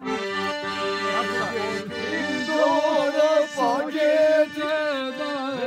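Piano accordion playing a tune: held chords over a low sustained bass note for the first two and a half seconds, then a louder, wavering melody line.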